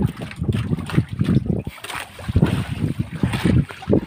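Wind buffeting the microphone in uneven gusts, with water splashing around a small fishing boat.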